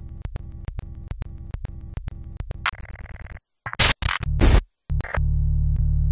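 Glitch electronica: a stuttering loop of short clicks about four a second, then sudden bursts of noise and a low buzzing tone, chopped by abrupt dropouts to silence.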